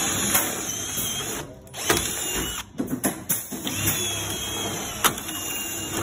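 Cordless brushless drill-driver backing screws out of a plastic panel. It runs in three stretches with short breaks, the last the longest with a faint motor whine, and a few sharp clicks come between the runs.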